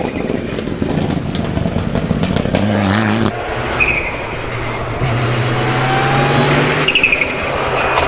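Mitsubishi Lancer Evo IX rally car's turbocharged four-cylinder engine being driven hard in a few separate passes. Its note climbs and drops with the gear changes, then holds steady for a couple of seconds near the end.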